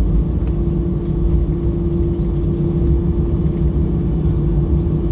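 Cabin noise inside an Airbus A320-214 taxiing after landing: a steady low rumble from the engines and the rolling airframe, with a constant hum running underneath.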